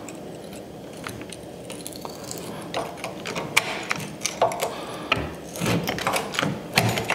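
Bench-mounted lever shear cropping an annealed steel knife blank held in locking pliers: a run of sharp metallic clicks and snaps as the blade bites through the steel, starting about three seconds in.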